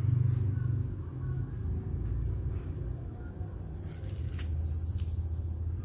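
Steady low background rumble, with a few light clicks about four to five seconds in as smartphones are picked up and set down on a table.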